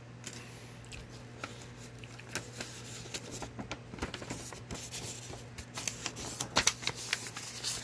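Paper rustling and crackling as a packing slip and mailing envelope are handled: a run of short, crisp crackles that grow busier and louder in the second half, over a steady low hum.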